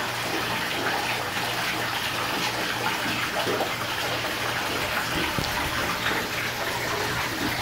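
Pumped saltwater pouring in several streams from a pipe into a partly filled aquarium, splashing steadily into the shallow water, with a steady low hum underneath.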